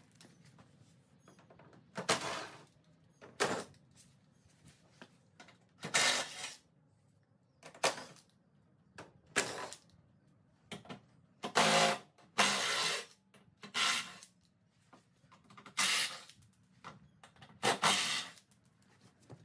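Front bumper cover of a Lexus GX470 being worked loose and pulled off: about a dozen short scrapes and knocks of plastic at irregular intervals.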